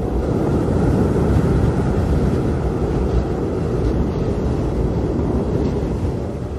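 Steady cabin noise of a jet airliner in flight, the deep even rush of engines and airflow heard from inside the cabin, with most of its weight in the low end.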